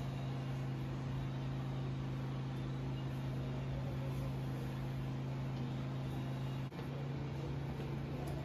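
Steady low motor hum with an even tone, briefly dipping near the end and resuming at a slightly different pitch.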